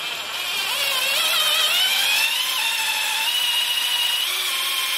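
Power drill boring a bolt hole into weld metal built up on an Audi TT engine block's bolt mount. Its whine wavers and climbs in pitch over the first couple of seconds, then holds steady, and cuts off sharply at the end.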